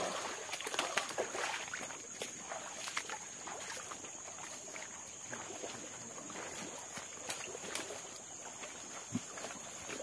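Footsteps of several people on wet stones and leaf litter, an irregular run of soft knocks and crunches, over a steady high insect drone.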